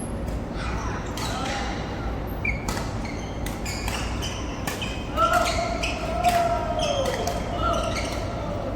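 Badminton rally in a reverberant hall: rackets striking a goose-feather, cork-headed shuttlecock again and again in sharp, irregular hits, with players' voices around the middle.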